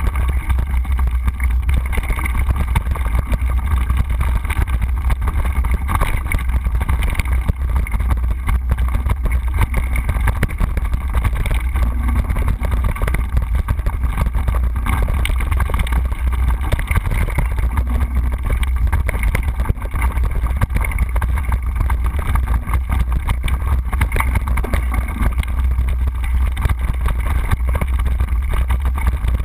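Mountain bike rolling fast down a bumpy dirt trail: wind buffeting the microphone as a steady low rumble, over a constant dense rattle of the bike and its mount over the bumps.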